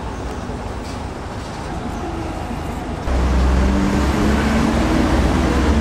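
Busy street traffic: a steady roadway hum. About three seconds in it turns sharply louder with the low engine rumble of a passing vehicle.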